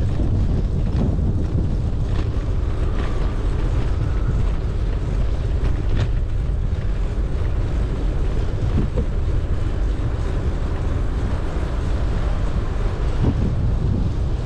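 Wind buffeting the microphone of a GoPro Hero9 Black action camera on a moving bicycle: a steady low rumbling rush, with a few faint ticks.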